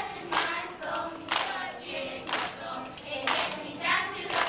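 Children's choir singing with rhythmic hand claps on the beat, about one clap a second.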